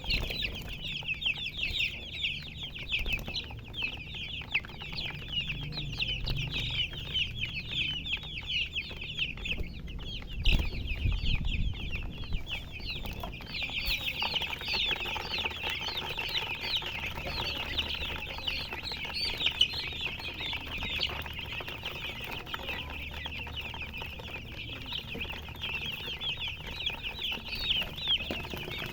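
A flock of baby chicks peeping all at once, a dense stream of short, high, falling chirps with no gaps. A brief low thump comes about ten and a half seconds in.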